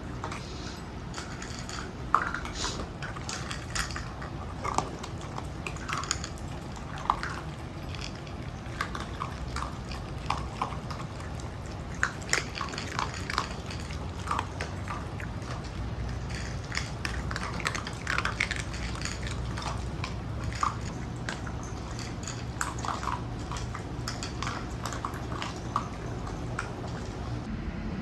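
Irregular crisp clicks and crunches of dry dog food at feeding time, over a steady low rumble of strong typhoon wind outside.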